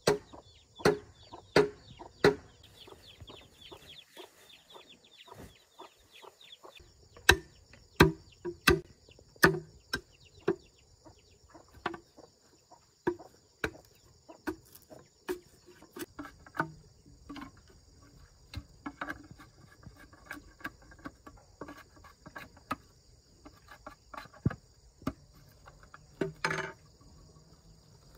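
Machete chopping green bamboo: a series of sharp, irregular strikes, sometimes several a second, with pauses between. Insects buzz steadily and chickens cluck.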